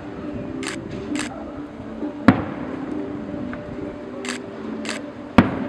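Aerial fireworks going off: two sharp bangs, one a little over two seconds in and one near the end, with short hissing crackles between them.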